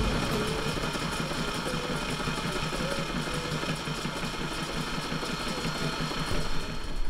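Sailrite sewing machine running, stitching through bimini canvas with a fast, even needle rhythm.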